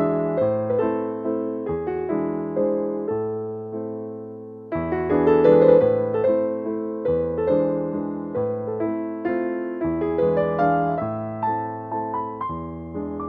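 Background music: a soft piano melody over changing chords, notes struck and fading at a gentle, steady pace.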